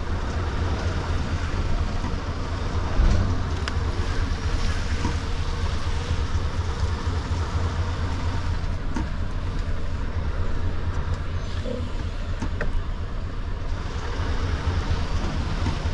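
Scania S770's V8 diesel engine running steadily at low revs, a deep even drone, with a few light knocks and clicks; the loudest knock comes about three seconds in.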